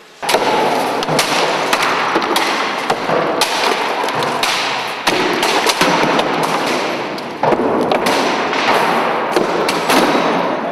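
Household appliances being smashed with sledgehammers and boots: a loud, dense run of crashing blows, thuds and clattering metal debris that starts suddenly, with a short lull about seven and a half seconds in.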